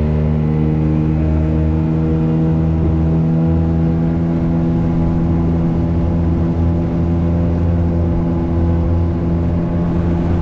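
Small boat motor, most likely a dinghy outboard, running at a steady speed with an even low drone and only slight shifts in pitch.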